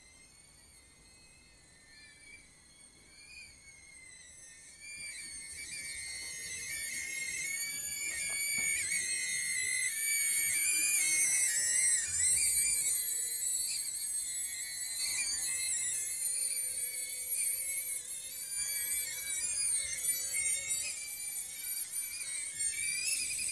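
High-pitched whine of a BetaFPV Cetus micro FPV drone's motors and propellers in flight, its pitch wavering up and down with the throttle. The whine grows louder about five seconds in.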